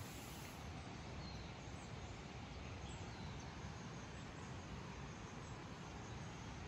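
Faint outdoor ambience: a steady low hiss of background noise with a few faint, short bird chirps.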